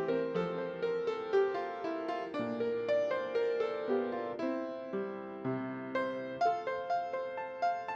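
Solo piano playing a slow, gentle piece, notes and chords changing every half second or so.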